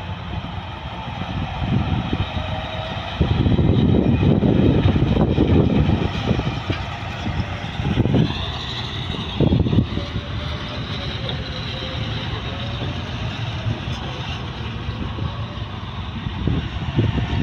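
Diesel engine of a loaded dump truck running as the truck drives off, louder for a few seconds from about three seconds in.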